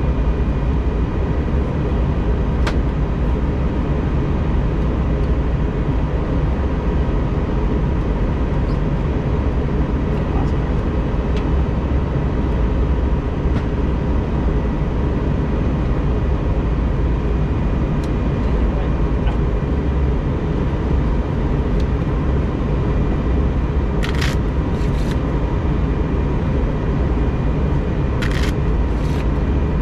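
Airbus A320 cabin noise: a steady drone of engines and airflow with a deep rumble and faint, even whine tones. Two brief hissy sounds come near the end.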